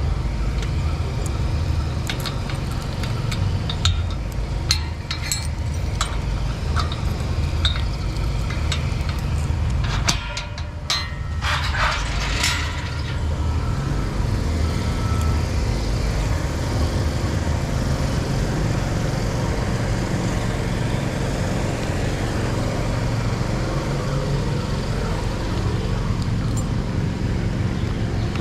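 Motorcycle on the move: a steady low rumble of engine and road, with scattered light clicks and rattles through the first half and a brief drop in level about ten seconds in.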